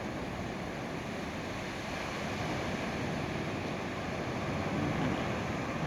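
Gulf of Mexico surf washing on the beach, with wind on the microphone, a steady rushing noise that swells slightly near the end.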